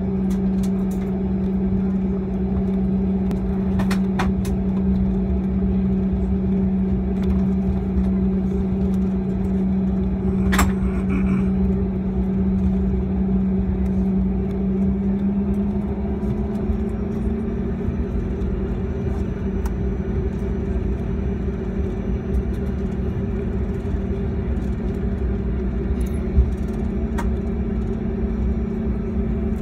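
Cabin noise of a Bombardier CRJ-200 taxiing: the steady drone of its rear-mounted General Electric CF34 turbofans at taxi power over a low rumble, the drone's pitch rising slightly a little past halfway. A few light clicks sound over it.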